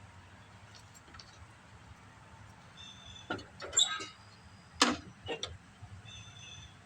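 A handful of sharp clicks and knocks of hands working on the lawn tractor's parts and controls, the loudest about five seconds in, over a faint steady hum.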